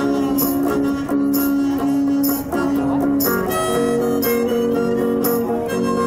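Harmonica playing long held notes over a strummed archtop guitar, in a country-style tune. A short hissy percussion hit sounds about once a second.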